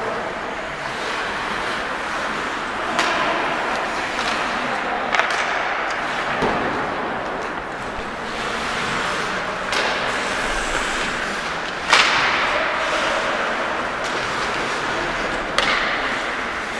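Ice hockey play: a steady scrape of skates on the ice, broken by about five sharp knocks of stick and puck, the loudest about twelve seconds in.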